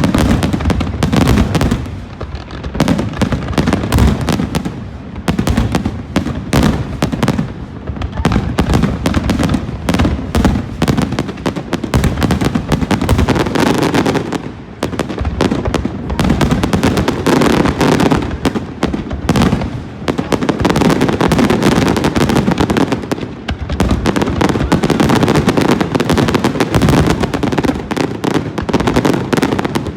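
Fireworks display: a dense, continuous barrage of bangs and crackling bursts, with a few brief lulls.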